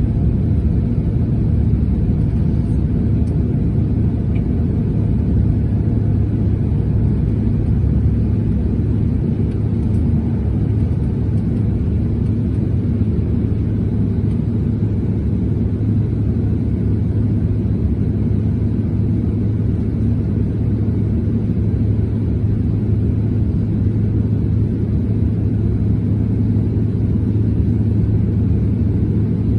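Steady low rumble of cabin noise inside a Bombardier CRJ900 climbing out after takeoff: its two rear-mounted GE CF34 turbofans and airflow over the fuselage, with a steady low hum underneath.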